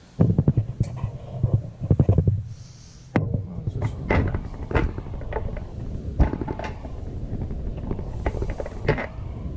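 Hands handling a bolt and parts on a wooden tabletop right beside the microphone: irregular knocks, clicks and low thumps. The heaviest thumps come in the first couple of seconds, followed by a brief lull and then steadier smaller knocks.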